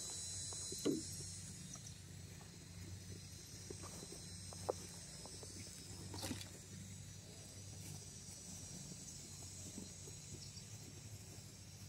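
A high-pitched insect chorus of trilling crickets, with a faint low hum underneath and a few faint clicks and taps.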